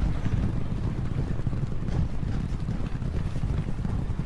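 A field of racehorses galloping: a dense, rapid, low rumble of many hoofbeats that goes on without a break.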